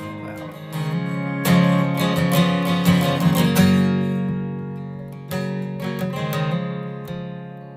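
Background music: an acoustic guitar strumming chords, with strong strums about a second and a half in and again a little after five seconds.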